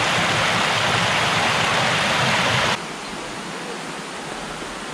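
Water rushing and splashing over a shallow stone weir beside a canal lock, a loud, steady rush of white water. About three seconds in it drops suddenly to a much fainter steady hiss.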